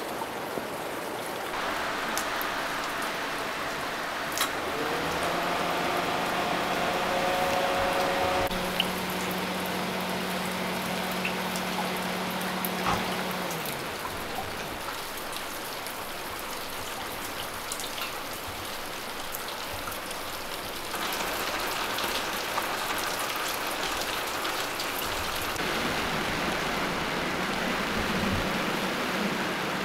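Heavy rain falling and splashing on wet pavement, a steady hiss. About five seconds in, a low steady hum joins it for several seconds and stops about halfway through.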